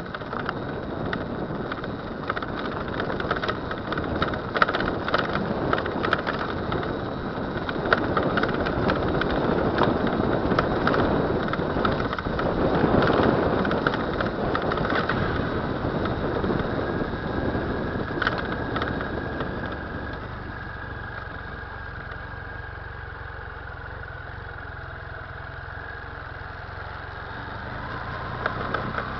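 BMW F 800 GS parallel-twin engine running, with irregular clicks and clanks from the rear end through the first two-thirds, then quieter and steadier from about twenty seconds in. BMW puts the clanking down to the drive chain (35 mm slack) and calls it normal; the owner doubts it.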